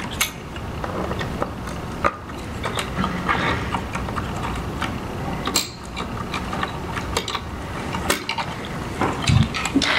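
Irregular light clicks and small knocks of a screwdriver and electrical connectors being worked free on a diaphragm pump's housing.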